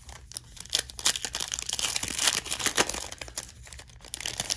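Plastic trading-card pack wrapper crinkling and crackling as it is torn open by hand, most intense for a few seconds in the middle.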